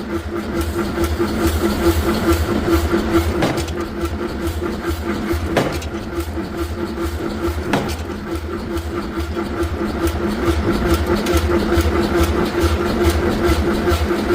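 Heavy machinery running steadily with a pulsing low hum, and a sharp knock three times, about two seconds apart, in the first half.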